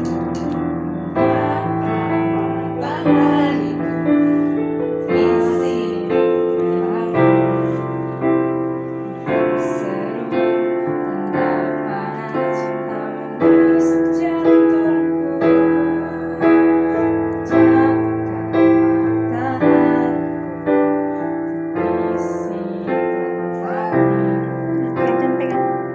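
Digital piano played slowly: a melody over sustained chords, with a new note or chord about once a second.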